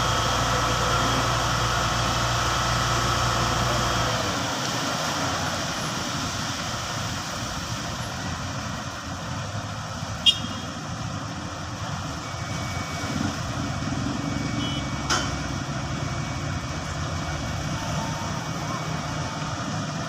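A steady engine running, a vehicle or machine, with a low hum that changes character about four seconds in. Two sharp knocks come later.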